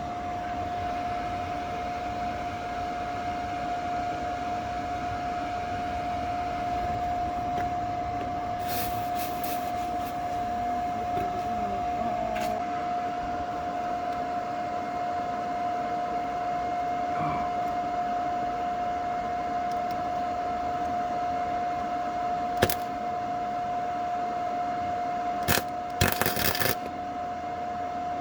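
100-volt welder welding steel car frame: a steady frying hiss with a constant high tone underneath, broken by a few sharp crackles about a third of the way in and again near the end.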